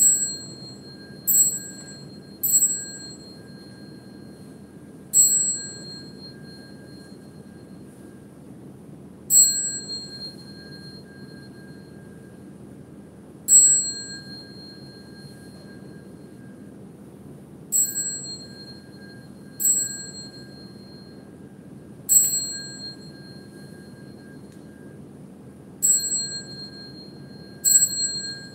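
Small high-pitched Buddhist hand bell struck about eleven times at uneven intervals, each stroke ringing clear and fading over a second or two, pacing a monastic's bows and prostrations. A faint steady hum lies underneath.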